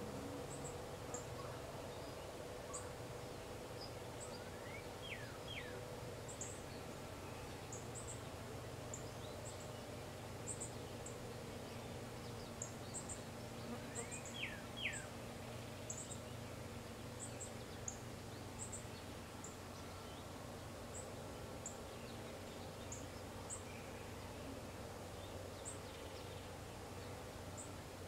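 Songbirds calling outdoors: short, very high chips scattered throughout, and twice a pair of quick sweeping whistled calls, over a steady low background hum.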